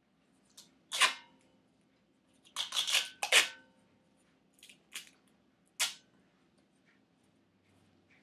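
Several sharp knocks and clanks with brief metallic ringing, one about a second in, a quick cluster of four around three seconds in and a few more after, as the circular saw blade mounted on a wooden shovel handle is handled.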